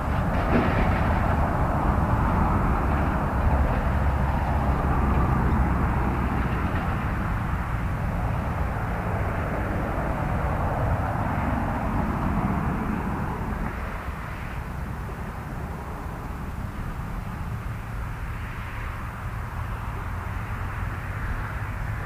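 A steady, distant engine rumble that slowly fades partway through.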